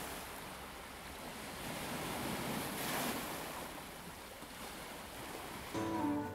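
Sea water washing and wind on the microphone, an even rush that swells and eases. Near the end, acoustic guitar music comes in.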